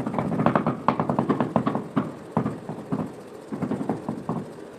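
A tool handle knocking rapidly on a cement floor tile, tapping it down into its mortar bed to settle and level it: a fast run of knocks, a short pause, then a shorter run near the end.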